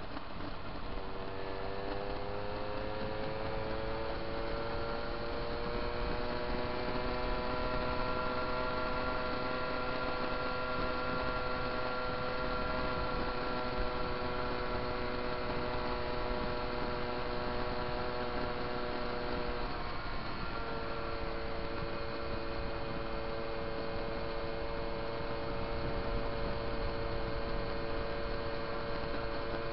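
Moped engine running under way, its hum rising in pitch over the first few seconds as it gathers speed, then holding steady. About two-thirds of the way through, the pitch shifts abruptly and settles again. A steady rushing noise runs underneath.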